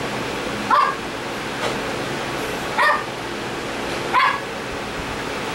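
Pekingese at play giving three short, high yapping barks a second or two apart, over a steady background hiss.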